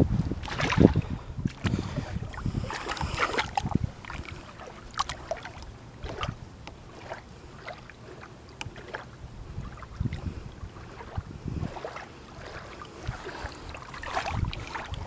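Water splashing and sloshing at the side of a boat as a largemouth bass is lowered into the lake by hand and released. There are louder splashes in the first few seconds and again near the end, and a few short knocks in between.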